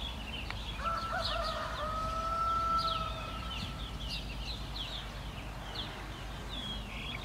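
A rooster crows once, a call of about three seconds starting about a second in, wavering at first and then held, over steady chirping of small songbirds.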